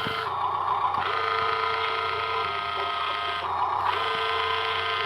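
Electric motors and gearboxes of radio-controlled construction models whining steadily, the pitch shifting as they work, with a short hiss about three and a half seconds in.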